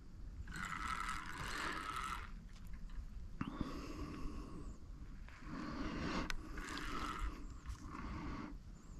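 Spinning fishing reel being cranked in several bursts of a second or two, a rough whirring of the gears, as a small hooked carp is reeled in.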